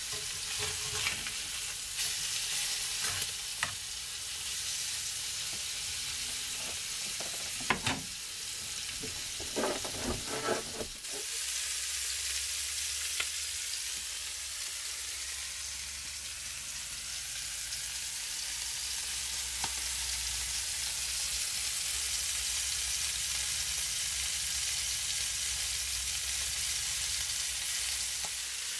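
Chicken pieces sizzling in a frying pan over a gas hob. For the first ten seconds or so, metal tongs click and knock against the pan as the pieces are turned; after that there is only the steady sizzle.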